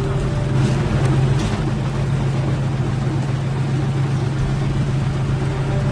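Engine of a six-wheeled WWII-era military cargo truck idling with a steady low hum.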